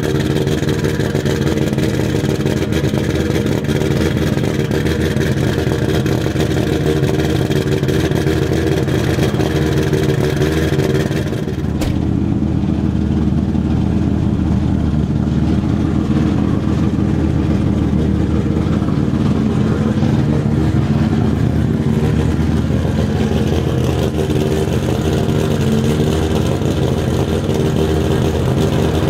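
BMW E30 M3 with a swapped-in 1100 hp Toyota Supra engine idling steadily through its side-exit exhaust. About twelve seconds in there is a click and the sound turns duller, then runs on steadily.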